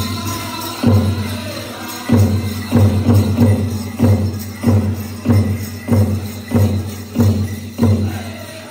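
Powwow big drum struck in heavy, evenly spaced beats about every 0.6 s for a chicken dance song, with the dancers' ankle bells jingling. The drumming stops near the end.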